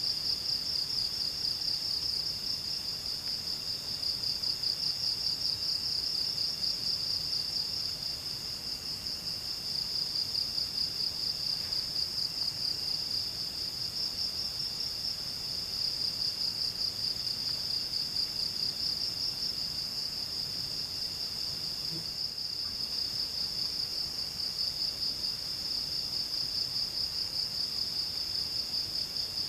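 Insects such as crickets calling steadily in a high-pitched, fast-pulsing trill. A fainter, lower trill from other insects cuts in and out underneath.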